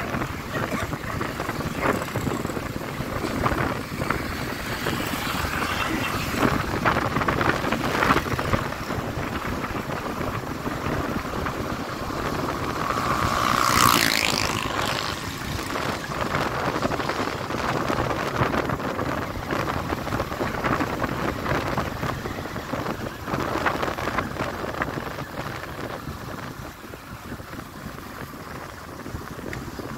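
Motorcycle ride noise: wind rushing over the phone's microphone with the engine and road running underneath. About halfway through comes a brief, louder whoosh that rises in pitch.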